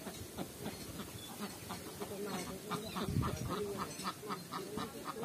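Ducks quacking off-screen: scattered calls at first, then a quick, regular run of short quacks through the second half.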